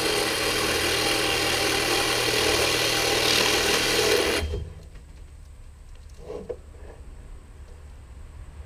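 Angle grinder with a cut-off wheel cutting through a rolled-up roll of galvanized steel hardware cloth, running steadily, then stopping abruptly about four and a half seconds in. A light knock follows a couple of seconds later.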